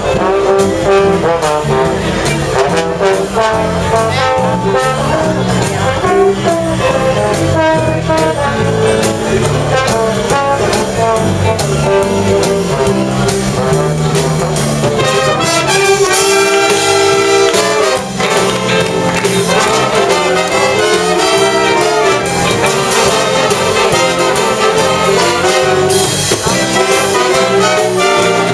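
Big band playing a jazz number: saxophones, trumpets and trombones over a moving bass line, with the whole brass section coming in strongly about halfway through.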